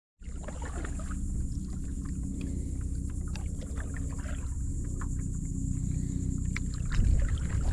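Stand-up paddleboard being paddled: the paddle blade dipping and pulling through the water, with scattered small splashes and knocks over a steady low rumble.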